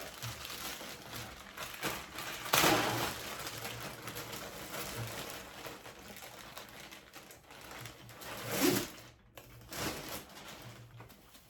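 Rustling and handling of paddle board gear as it is packed into a carry bag, with a louder rustle about two and a half seconds in and another near nine seconds.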